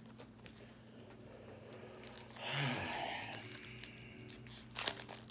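Foil booster pack wrapper crinkling and being torn open by hand: a rustle about two and a half seconds in, then sharp crackles near the end. A low steady hum runs underneath.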